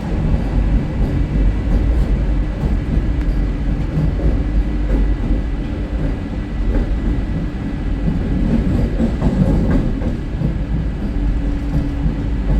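Vande Bharat Express electric multiple-unit train running along the line: a steady, loud, low rumble of wheels and running gear on the track.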